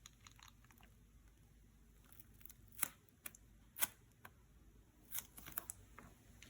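Hands handling trading-card packaging in a quiet room: scattered sharp clicks, taps and crinkles, the two loudest just before and just after the three-second mark and a quick cluster about five seconds in.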